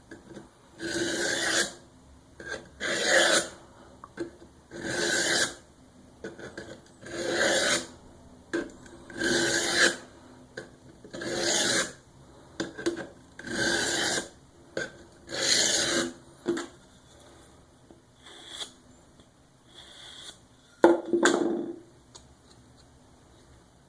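Edge of a VG-1 steel Cold Steel SRK knife drawn through a piece of wood in rasping strokes, about one every two seconds. There are eight strong strokes, then a few lighter ones, and one short, sharp stroke near the end. The strokes strip the weakened metal and leftover burr from the freshly sharpened edge.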